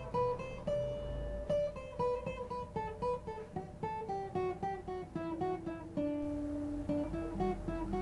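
Background music: an acoustic guitar playing a quick melody of plucked single notes.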